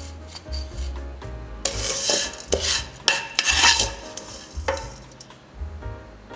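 Stirring and scraping in a cooking pan, with a run of loud scrapes through the middle and a light sizzle, over soft background music.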